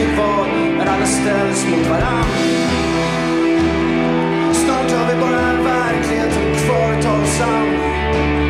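Live rock band playing, with electric guitar and a man's voice singing at the microphone.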